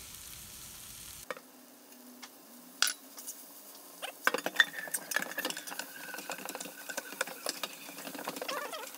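Spatula stirring and scraping chicken and kimchi around a frying pan, with light sizzling. It is quieter at first, with a few single clicks, and the busy stirring clatter starts about four seconds in.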